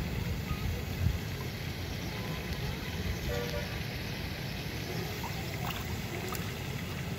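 Wind buffeting the microphone with a rough low rumble, over the steady wash of small waves lapping against a stony lake shore.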